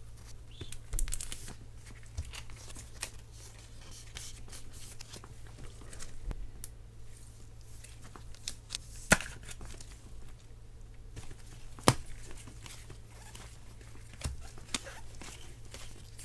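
Trading cards handled by gloved hands, rustling and sliding against each other with scattered light clicks, and two sharper clicks about nine and twelve seconds in. A low steady hum runs underneath.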